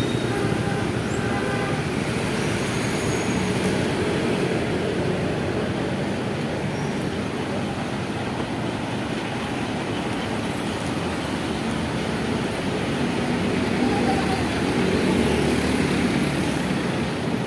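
Busy city street traffic: bus engines running close by with a steady wash of road noise.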